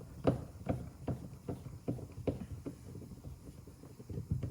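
Screwdriver being worked on a car door-card screw: a steady run of light clicks, about two to three a second.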